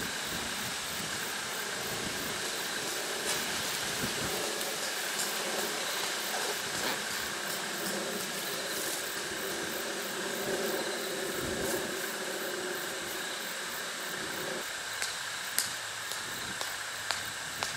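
Steady outdoor hiss. A low hum comes in about six seconds in and cuts off suddenly near fifteen seconds. A few sharp clicks near the end come as tent stakes and guy lines are handled.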